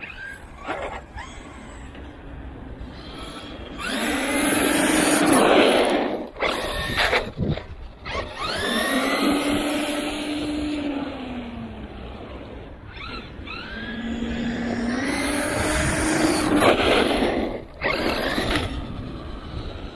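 Traxxas E-Revo 2 RC truck's brushless electric motor and drivetrain whining in three runs, about 4, 8 and 14 seconds in, each time the pitch rising with acceleration and then holding steady before falling away.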